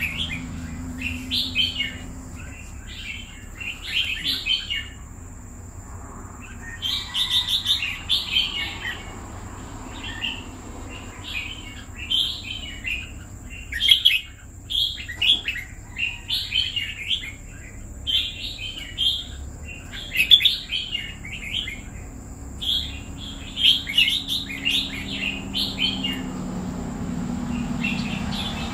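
Caged red-whiskered bulbul singing: short, chirpy phrases in quick succession, with a few brief pauses.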